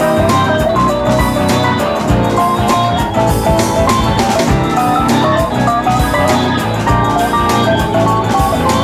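Instrumental background music: a melody moving in short steps over a steady beat.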